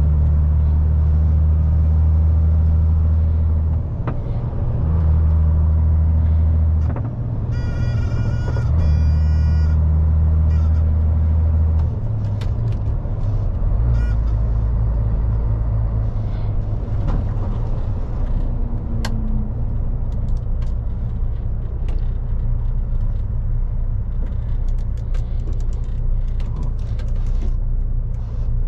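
2001 MAN lorry's diesel engine running under way, a steady low drone. The engine note breaks and changes pitch about four, seven and twelve seconds in as gears are changed, then settles at a lower, steadier note; a brief high-pitched tone sounds around eight to ten seconds in.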